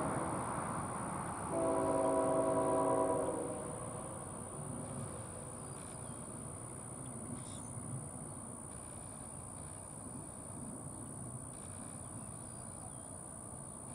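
Air horn of a distant CSX freight locomotive sounding one steady blast of about two seconds, starting a little under two seconds in. Around it, the low rumble of the approaching train fades down and then holds steady.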